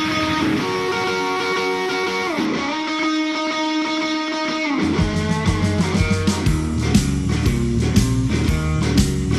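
Electric guitar rock music: held, bending guitar chords for about five seconds, then a drum beat and bass come in with steady strummed guitar.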